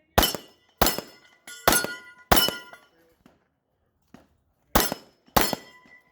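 Gunshots fired at steel targets, six in all: four in quick succession, a pause of about two seconds, then two more. Each shot is followed by the brief metallic ring of a steel plate being hit.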